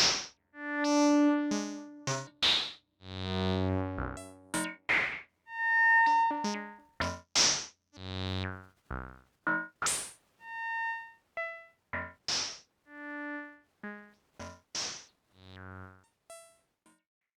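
Modular synthesizer playing a sequenced pattern of short pitched notes, quantized to a minor scale, mixed with filtered noise sweeps. The notes grow quieter and stop shortly before the end.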